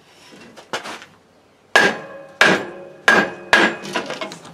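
Four sharp hammer blows on metal, about two-thirds of a second apart, each with a short ringing tone, as a microcar's stuck variator pulley is knocked to free it from the engine shaft. Weaker knocks come before and after.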